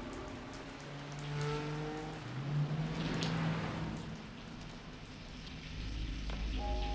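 Film soundtrack: steady rain under sustained synthesizer chords, with a rushing noise that swells and fades about two to four seconds in and a deep rumble coming in near the end.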